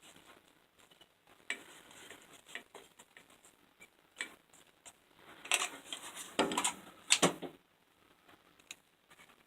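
Parts of a disassembled Black & Decker grinder being handled: scattered clicks and light knocks, with a louder spell of clatter about five and a half to seven and a half seconds in.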